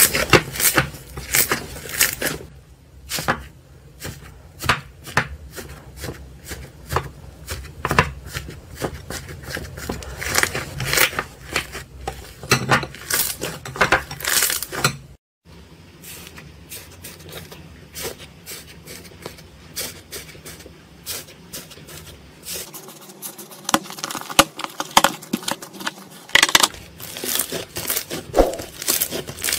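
Hands squeezing and pressing crunchy slime, giving an irregular run of crackling, popping clicks, with a brief break about halfway through.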